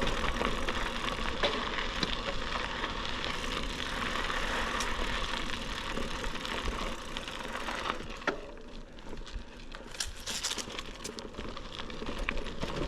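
Riding noise of a bicycle picked up by a GoPro Hero 12 Black's microphone under a foam WindSlayer cover, with wind reduction off: a steady rush of wind and tyre noise with a low rumble. About eight seconds in it drops to a quieter stretch of scattered clicks and crackles.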